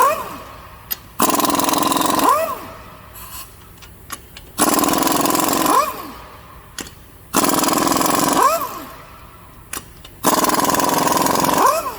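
Impact wrench with a 7/8-inch socket spinning off the truck's lug nuts: four loud bursts of a second or so each, each ending in a short whine as the tool spins down.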